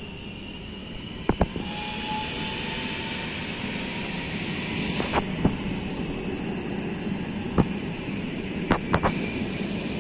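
Electric regional train running past on the tracks: a steady rushing that grows louder, with sharp clicks, often in close pairs, as its wheels cross rail joints.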